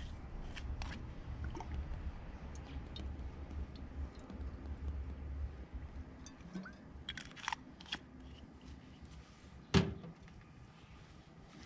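Olive oil poured from a glass bottle into an empty nonstick frying pan, with faint clicks and handling over a low rumble that fades about halfway through. One sharp knock near the end is the loudest sound.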